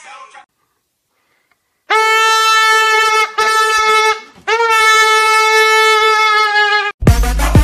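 Three long, loud blasts of a horn-like wind instrument held on one steady pitch, starting about two seconds in, the middle one shorter and fading out. Near the end, electronic music with a heavy beat cuts in.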